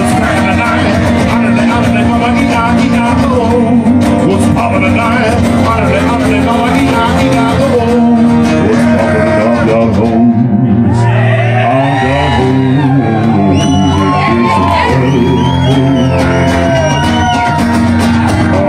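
Live music: two acoustic guitars strummed together while a man sings loudly into a microphone.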